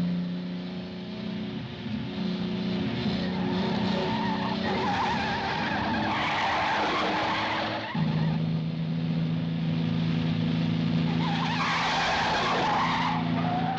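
Film car-chase sound effects: car engines running at high revs under almost continuous tyre squealing, a wavering screech that swells twice. The engine note changes abruptly about eight seconds in, as at a cut.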